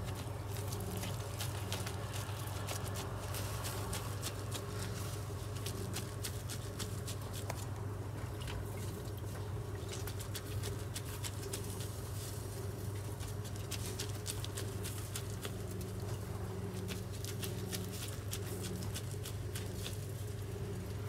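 Minced beef being squeezed and pressed by gloved hands onto a flat metal skewer: soft wet squelching and patting of the meat in quick, irregular clicks. A steady low hum runs underneath.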